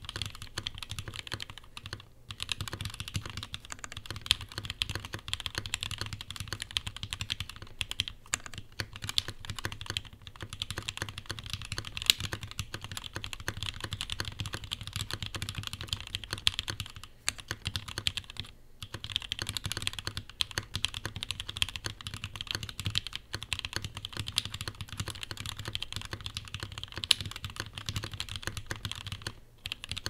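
Continuous fast typing on a Rama M65-A custom mechanical keyboard, top-mounted with an aluminium plate, fitted with lubed 62 g C³ Tangerine v2 linear switches and GMK keycaps: a dense run of keystrokes with a few brief pauses and an occasional louder stroke.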